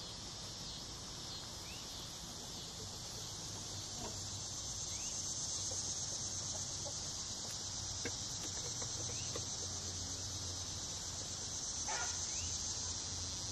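Steady high-pitched insect chorus, crickets, droning throughout, with a few short animal calls over it, the clearest about twelve seconds in.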